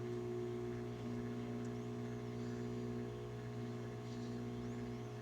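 Microwave oven running on high power, a steady electrical hum with a fainter tone that comes and goes every second or so.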